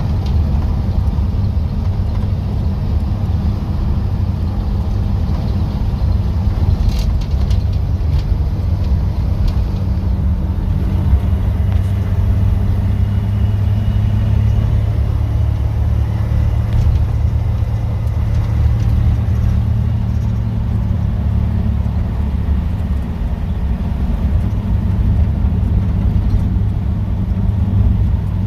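Chevrolet 235 Blue Flame straight-six running as the sedan is driven down the road, a steady low rumble with no ticking now that the bad lifter has been repaired.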